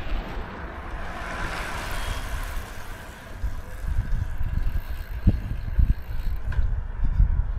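Wind buffeting the microphone in irregular low gusts over a steady outdoor hiss; a broad rushing sound swells and fades about one to three seconds in.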